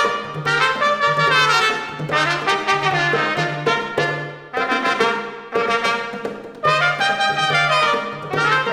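Small brass band playing an instrumental passage: trumpet and trombone phrases over a low bass note repeating on a steady beat.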